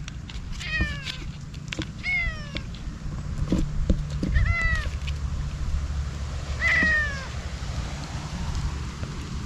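A stray cat meowing four times, each meow short and falling in pitch, about two seconds apart: a hungry cat calling for food. A low rumble runs underneath.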